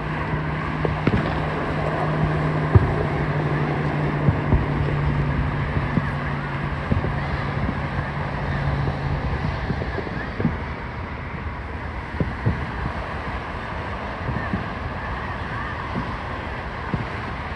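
Outdoor ambience with wind on the microphone and a murmur of voices. A steady low engine hum runs for about the first nine seconds and then stops, and short faint pops and clicks are scattered throughout.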